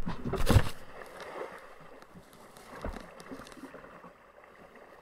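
The hull of a small jet kayak splashes and scrapes for under a second as it runs aground on a muddy riverbank, with its jet drive off. This is followed by faint scattered knocks and rustling.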